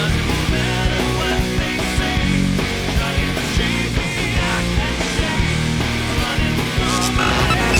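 Loud instrumental rock music, with guitar over a steady drum beat and no vocals.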